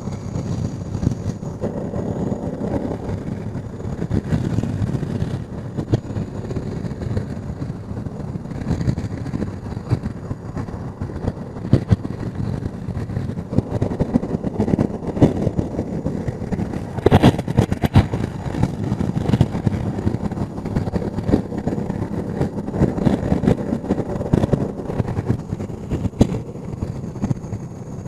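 Heavy wind noise on the microphone while riding a Honda NT650V Deauville motorcycle, with its V-twin engine running underneath. A short sharp knock about two-thirds of the way through.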